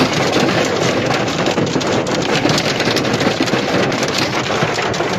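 Hail pelting a car's roof and windshield, heard from inside the car: a dense, steady clatter of countless small hits.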